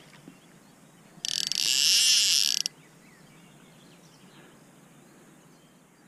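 A fishing reel whirring in one burst of about a second and a half, starting about a second in.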